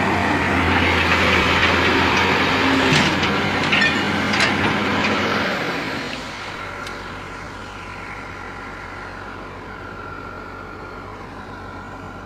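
Doosan crawler excavator's diesel engine running, with several sharp knocks as the machine moves over rocky mud. About six seconds in the sound drops to a quieter, steady engine hum.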